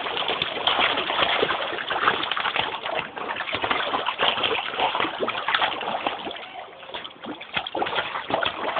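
Water splashing and sloshing as two dogs paddle about in an inflatable paddling pool, easing off briefly about seven seconds in.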